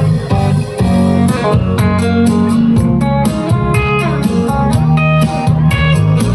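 Guitar-led music with a steady bass line and a regular beat.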